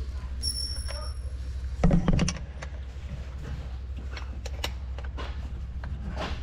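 Metal tools and parts clinking and knocking, with one loud clunk about two seconds in and a brief high metallic ring near the start, over a steady low hum.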